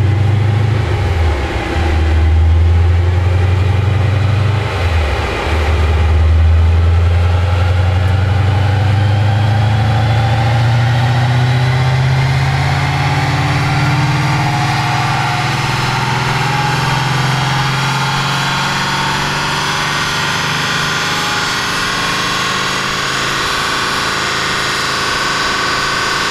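BMW E39 M5's 4.9-litre S62 V8 through Supersprint headers, catalysts and exhaust, running under load on a chassis dyno. After two brief dips in the first five seconds, its revs climb slowly and steadily in a long pull.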